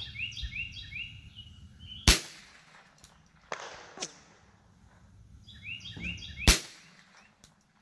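Two sharp .22LR shots from a Ruger 10/22 rifle, about two seconds in and about four seconds later, with fainter cracks between them. Small birds chirp near the start and again just before the second shot.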